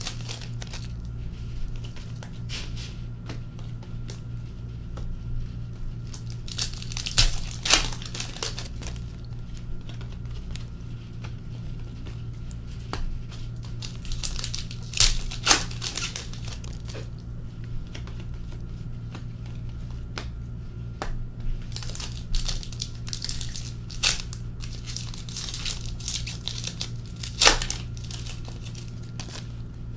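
Trading-card pack wrappers torn open and crinkled by hand in irregular bursts, with cards handled in between, over a steady low hum.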